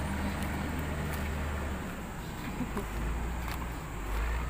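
Heavy diesel engine running at low revs, a steady low drone that drops slightly in pitch about two seconds in.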